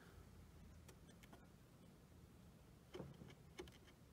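Near silence with a few faint clicks, the clearest about three seconds in: buttons being pressed on a Humminbird Helix 7 fish finder.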